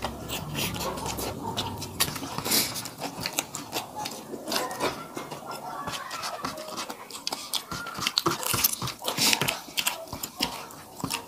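Two people chewing and eating rice and egg curry by hand, with many short, irregular wet clicks from their mouths and from fingers mixing rice on steel plates.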